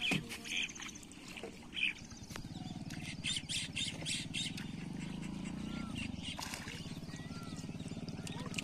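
Birds chirping and squawking. About two and a half seconds in, a low steady hum begins and holds as the loudest sound.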